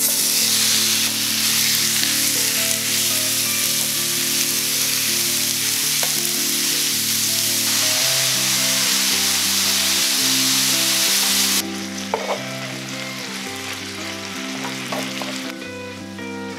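Marinated bulgogi beef hits a hot oiled frying pan and sizzles loudly as it is stirred, while its marinade cooks off. About twelve seconds in the sizzle drops to a softer, steady frying, with a few sharp clicks near the end. Background music plays underneath.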